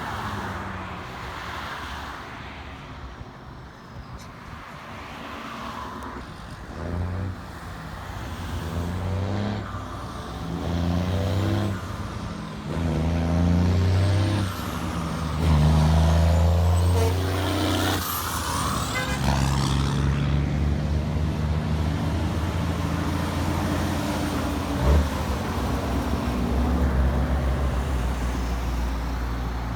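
Heavy truck engine working through several gear changes, its note sounding in stretches broken by short gaps at each shift, then running steadily as the truck passes. A high whine slides down in pitch as it goes by, and one sharp knock comes near the end.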